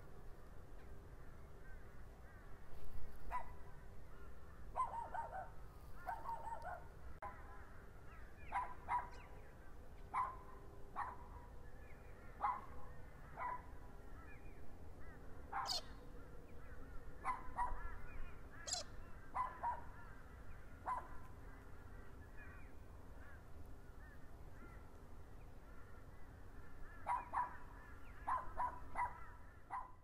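Short animal calls, singly or in pairs every second or two, with a quicker run of them near the end, over a low steady rumble of wind.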